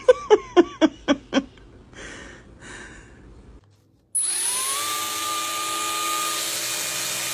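A rapid run of 'ha-ha' laughter, about four laughs a second, lasting about a second and a half. A little over halfway in, a steady whirring hiss starts abruptly, like a small motor, with a whine that rises in pitch and then holds.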